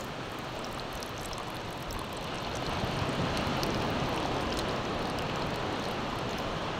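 Surf washing up the beach: a steady wash of water noise that swells a little about two and a half seconds in.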